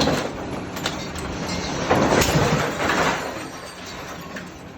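Heavy metal clanking and scraping as a hammer is shifted on a tractor's forks: a couple of sharp knocks, then a louder stretch of clattering about two seconds in, fading near the end.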